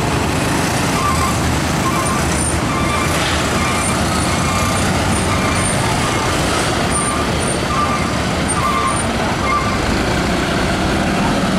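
Diesel engine of a Mercedes-Benz semi-trailer truck running as it turns and passes in heavy traffic, with motorcycle engines around it. Over it an electronic beeper sounds about twice a second for most of the stretch.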